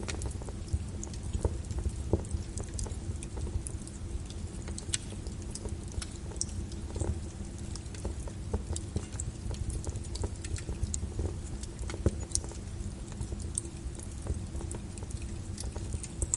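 Wood fire crackling in a fireplace: irregular small pops and snaps, a few sharper ones, over a low steady rumble of the flames.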